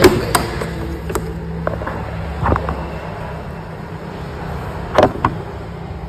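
Karaca Vantuz bagless vacuum cleaner running as it vacuums and sucks up dust, a steady motor hum, with sharp knocks at the start and again about five seconds in.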